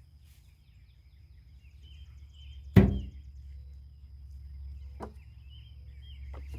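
One sharp knock nearly three seconds in, followed by two fainter knocks near the end, with birds chirping throughout.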